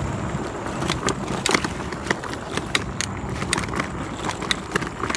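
Dualtron Ultra electric scooter riding over a rough dirt trail: a steady low rumble of wind and tyres on the microphone, with sharp, irregular clicks and rattles starting about a second in as it jolts over the bumpy ground.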